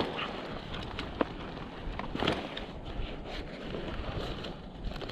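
Wind buffeting the microphone, with a few short knocks and rustles from a backpack and gear being handled.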